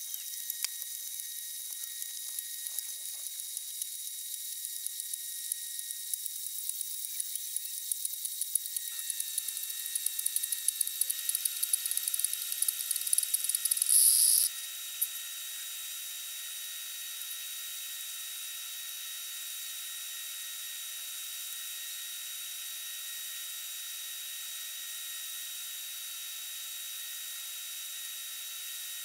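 Sped-up sound of a Mr. Coffee Iced Tea Maker brewing: the heater sputters and hisses as it pushes hot water over the tea. The dense crackling sizzle grows louder, peaks, and cuts off suddenly about halfway through as brewing ends, leaving a steady faint hiss with a thin steady hum.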